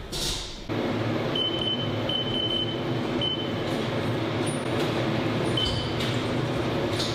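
Steady hum of a Haas CNC machining centre running in the shop. A few short high beeps come between about one and three seconds in, and one more near the end; these are the kind the Haas control gives as its keys are pressed.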